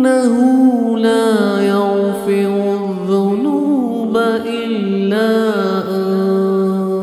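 Wordless vocal chanting in the style of a recited Islamic dua: a voice sliding through a melismatic melody over a steady, held vocal drone.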